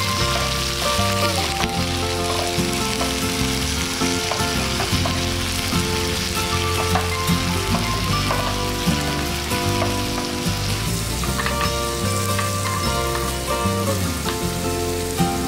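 Whole raw shrimp sizzling steadily in hot oil in a frying pan, stirred now and then with a wooden spatula. Background music plays underneath.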